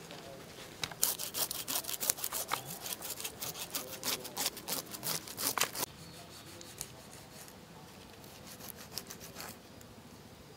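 Knife blade scraping the scales off a large snake's skin in quick, repeated strokes, stopping about six seconds in. After that, only faint cutting as the blade slits along the snake's belly.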